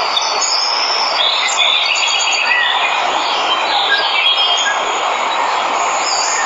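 Steady rush of falling water from a waterfall, with many birds chirping and calling over it in short, high notes.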